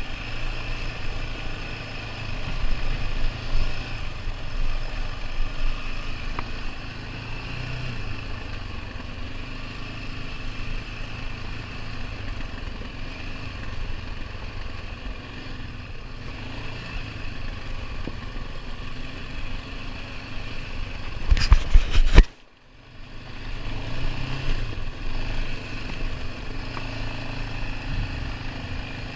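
ATV engine running steadily while riding a dirt trail, its pitch rising and falling a little with the throttle. About three quarters of the way through, a short run of loud knocks is followed by a sudden, brief drop in sound before the engine is heard again.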